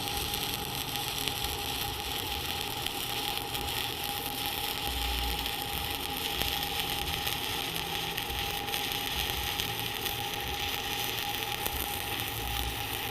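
Stick-welding arc sizzling and crackling steadily as a bead is run along a T-joint, with a steady high whine underneath.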